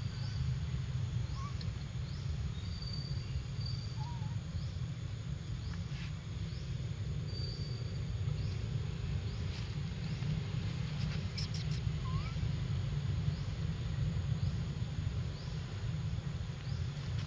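Forest ambience: a steady low rumble, insects chirping high and faint about twice a second, and a few short rising bird whistles.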